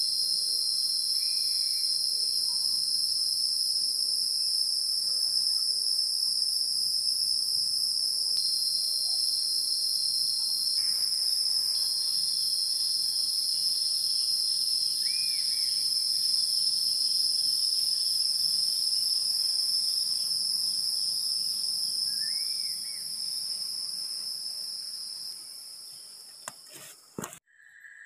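Forest insects keep up a steady, high-pitched drone that fades away in the last few seconds. Three faint short chirps sound over it.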